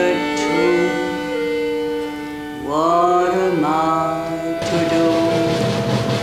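Stage cabaret music: an accordion holds steady chords while a woman sings with sliding, swooping notes. The music changes abruptly to another passage about two-thirds of the way through.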